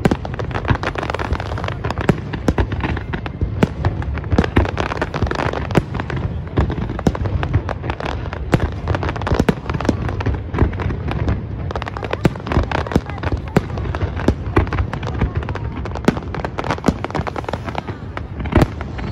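Large fireworks display: aerial shells bursting in an unbroken barrage, with sharp bangs several each second over a dense crackle.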